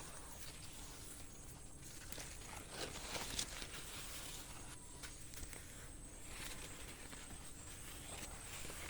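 Quiet outdoor nature ambience: a soft steady hiss with scattered rustles and light clicks, the sharpest a little after three seconds in, over a faint steady high-pitched whine.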